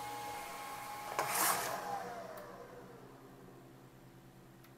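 Creality Falcon2 Pro laser engraver winding down after a cut: its steady running tones stop and a whir falls in pitch and fades out. A brief clatter comes about a second in as the enclosure lid is lifted.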